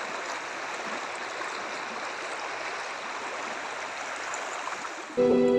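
Fast-flowing muddy floodwater rushing and churning across a road, a steady rushing noise. Instrumental music starts near the end.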